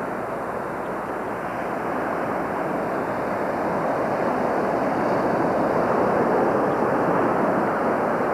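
Ocean surf breaking and washing up a sandy beach: a steady rushing that swells a little about halfway through.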